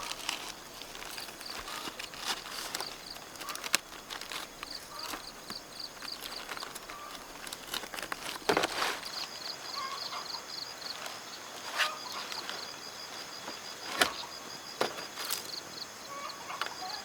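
Outdoor rural ambience: a high, rapid chirping pulsing several times a second throughout, with scattered knocks and rustles, a louder one about halfway through.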